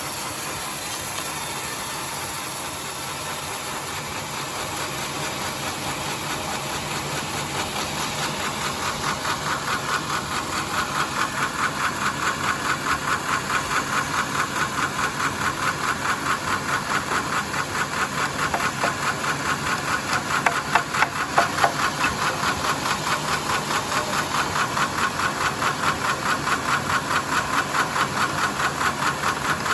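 Sawmill saw running and ripping timber into boards: a steady machine noise that takes on a fast, regular pulsing, about four beats a second, which grows louder after the first several seconds, with a few sharp clicks about two-thirds of the way in.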